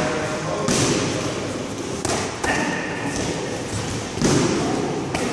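Boxing gloves smacking into focus mitts: about six sharp hits at an uneven pace, some in quick pairs, each with a short echo.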